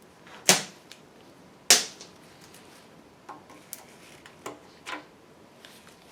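Small steel engine valve lifters clinking against metal as they are handled and set down: two sharp, loud clinks in the first two seconds, then several lighter clicks.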